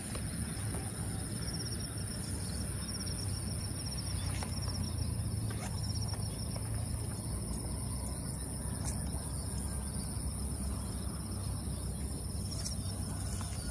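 Insects chirping in a steady high-pitched chorus at two pitches, with a low rumble underneath and a few faint clicks.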